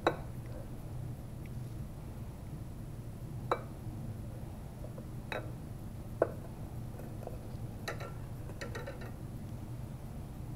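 Sparse light ticks and clinks, about half a dozen single taps with a short cluster near the end. They come from a glass gas collection tube being handled and clamped to a metal lab stand, over a steady low room hum.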